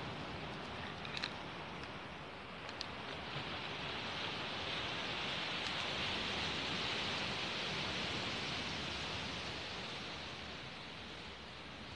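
Steady hiss of waves washing on a pebble beach, swelling over a few seconds and then fading, with a couple of faint clicks in the first few seconds.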